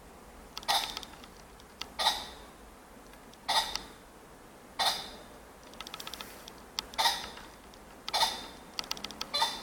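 Ring-necked pheasant giving short, sharp calls, repeated about every second or so, with a few quicker, fainter notes near the end.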